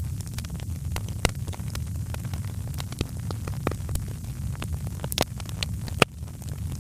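Wood fire crackling in a fireplace: irregular sharp snaps and pops over a steady low rumble, with the loudest pop about six seconds in.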